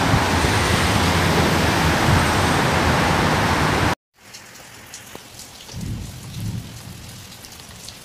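A loud, steady rush of noise with low buffeting, which cuts off abruptly about four seconds in. It is followed by much quieter rain pattering, with a few low rumbles of thunder.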